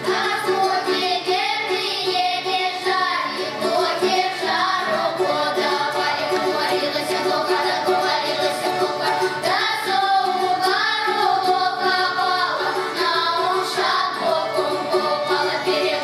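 Children's folk ensemble singing a Russian folk song together, accompanied by a button accordion holding steady notes.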